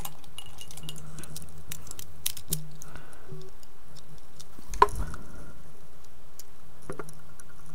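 Scattered light clicks and ticks of hands working on a motion-sensor light's plastic housing as something is cut free, with one sharper click about five seconds in, over a low steady hum.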